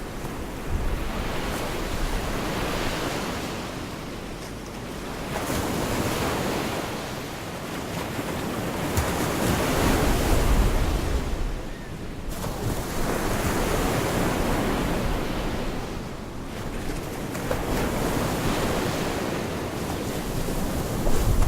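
Gulf of Mexico surf: waves breaking and washing onto the beach, the rush swelling and fading every few seconds.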